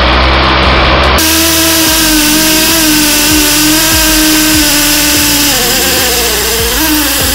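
Makita DF331D cordless drill running under load as its bit bores into a plastered masonry wall. The motor holds a steady pitch, then dips and wavers near the end.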